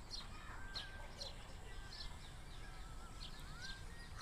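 Birds calling: short high chirps about twice a second, mixed with a few softer whistled notes, one of them rising near the end, over a steady low rumble.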